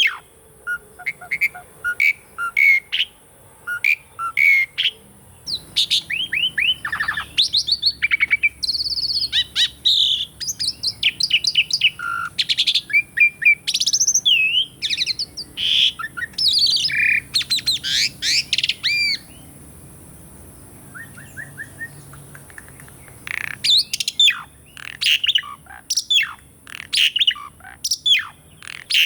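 Asian pied starling (jalak suren) singing a long, varied song of quick chirps, whistled gliding notes and rattling phrases. It pauses for a few seconds past the middle, then resumes with loud chirping.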